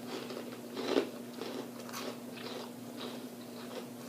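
A person biting into and chewing crunchy fried food from a plate of loaded onion rings and waffle fries. There is a louder crunching bite about a second in, then smaller crunches as she chews.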